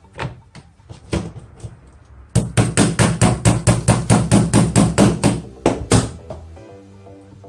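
A small metal claw hammer tapping the rear chassis pin into the polymer frame of a Tokyo Marui Glock 17 airsoft pistol. A few light, spaced taps come first, then a quick, even run of about fifteen sharp taps, roughly five a second, which stops abruptly.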